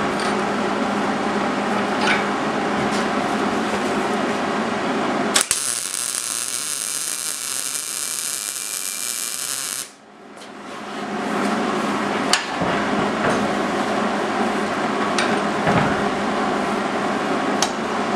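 Arc welder laying a weld bead: a steady crackling hiss with a few faint ticks. About five seconds in the sound turns thin and high, and near ten seconds the level dips sharply and then builds back.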